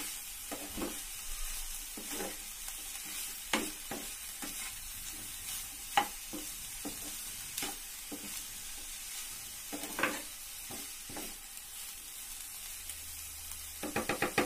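Diced bitter gourd sizzling in a frying pan while a spatula stirs it, with scattered scrapes and knocks of the spatula against the pan. Near the end there is a quick run of about five taps.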